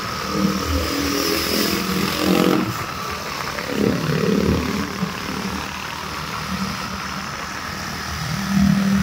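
Motorcycle engine running while riding, with a steady rush of wind noise and the engine's pitch shifting in the first half.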